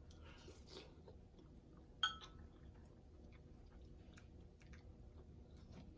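Faint chewing and mouth sounds of someone eating a soup of soft vegetables and shrimp, with a single clink of a metal spoon against the glass bowl about two seconds in and a few small clicks of the spoon.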